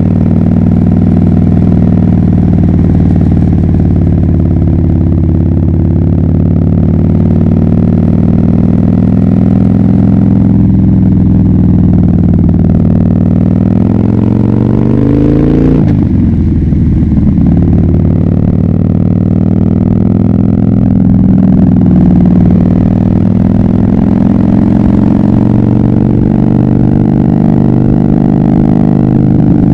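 2011 Harley-Davidson Dyna Fat Bob's air-cooled V-twin running loud through a KessTech ESM3 exhaust under way, its pitch following the throttle. About halfway through, the revs climb, fall away sharply, then build again.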